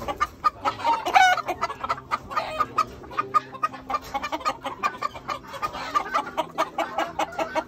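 Gamefowl roosters clucking in their pens, a quick run of short calls, with one louder, longer call about a second in.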